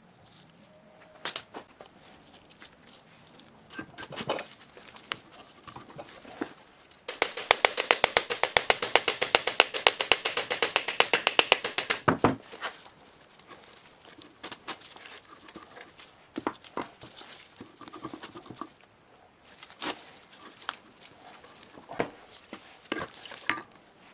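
Workshop sounds of tools and metal parts being handled during an electric motor restoration: scattered clicks and knocks, and about seven seconds in, some five seconds of rapid, even mechanical clicking with a steady high whine that stops abruptly.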